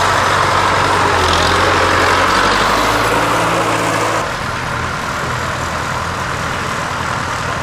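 Diesel tractor engines running steadily as vintage tractors drive slowly past in a parade. About four seconds in the sound changes abruptly to a lighter, quieter engine note.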